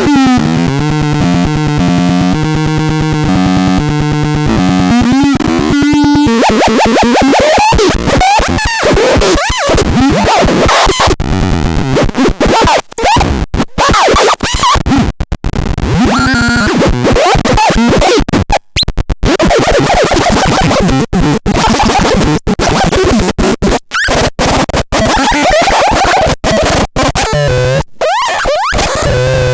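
Electronic noise music from the BaIOTEX 03: a sequence of stepped pitched synth tones for about six seconds, then harsh, glitchy noise with fast pitch sweeps and rapid stuttering cutouts.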